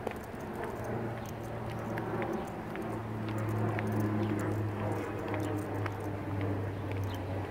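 Footsteps of hard-soled shoes on asphalt at a steady walking pace, over a steady low hum.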